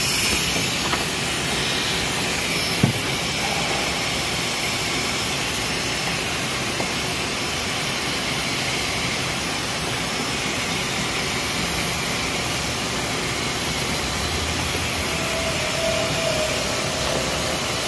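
Steady rushing hiss of air or gas flow, unchanging throughout, with a single short knock about three seconds in.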